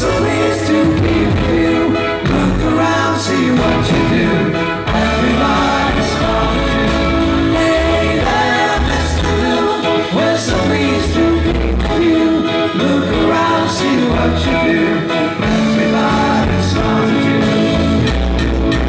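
Live rock band playing, with singing over electric violin, bass guitar and drums at a steady beat.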